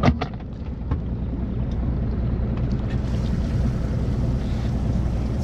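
A boat's motor idling with a steady low hum. There is one sharp knock right at the start.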